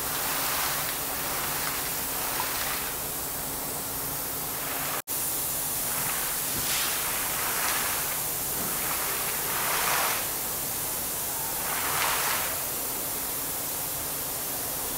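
Compressed air blowing muddy water and slurry up out of a borewell casing during air-lift cleaning: a steady rushing hiss of air and water that swells in surges every two to three seconds. It cuts out for an instant about five seconds in.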